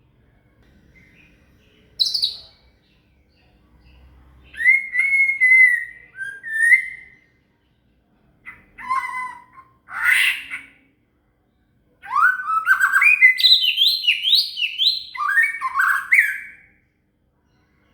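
White-rumped shama (murai batu) singing in separate phrases of clear whistles and quick rising notes, with short pauses between. Its song is filled with imitated cililin calls.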